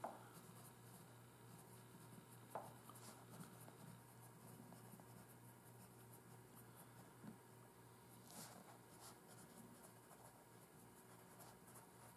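Pencil writing on graph paper: faint scratching of the lead as letters are printed, with a few light ticks of the point against the paper.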